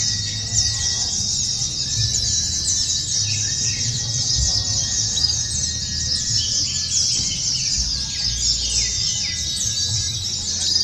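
Many white-eyes (pleci) singing at once: a dense, high-pitched chorus of rapid, overlapping twittering trills that never lets up, typical of a row of caged birds competing at a songbird contest. A low rumble runs underneath.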